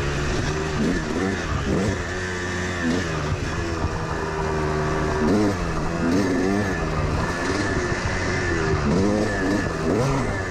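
Yamaha YZ dirt bike engine heard from on the bike at speed, revving up and dropping back again and again as the rider works the throttle and gears along the trail.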